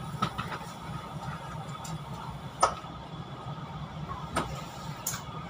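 Steady low hum inside a Chu-Kuang Express passenger carriage standing at a station, with a few sharp clicks and knocks, the loudest about two and a half seconds in.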